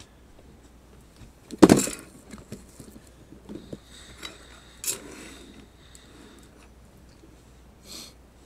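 Objects being handled on a tabletop: a loud sharp knock about two seconds in, a smaller one about five seconds in, and scattered lighter taps and clicks with a brief rustle near the end.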